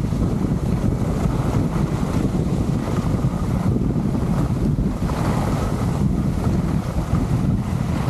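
Steady wind rushing over an Insta360 X3 action camera's microphone as the skier glides downhill.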